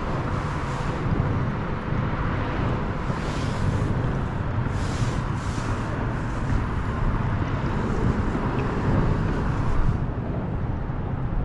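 Wind buffeting the microphone, a loud uneven rumble, with a few short hissy rustles over it.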